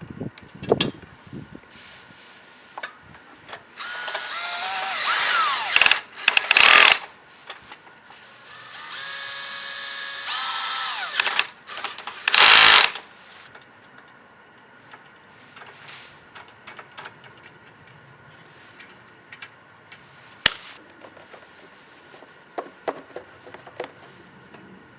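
A small power-tool motor run in several short bursts, its whine rising and falling in pitch, with clicks and knocks of hand tool work between the bursts.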